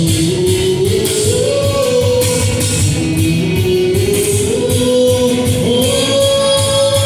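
Gospel song: a single voice singing a slow melody that moves in steps and holds long notes, over guitar and a steady drum beat.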